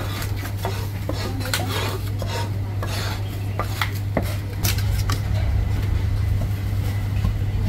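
Chinese cleaver knocking and scraping on a wooden chopping block, with irregular clinks of metal utensils and dishes, mostly in the first five seconds. A steady low hum runs underneath.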